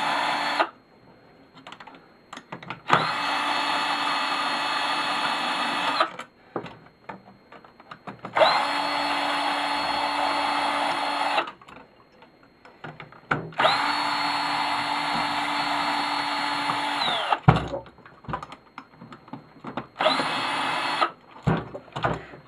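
Cordless drill/driver running in bursts of one to four seconds, about five times, each run speeding up at the start and winding down at the end, as it drives fasteners out of a garage door opener. Light knocks and clatter of handling between the runs.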